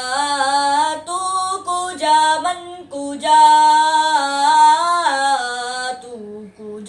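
A boy singing a naat unaccompanied, his single voice drawing out long notes that waver and slide in pitch, with a few short breaths between phrases and one long held note in the middle.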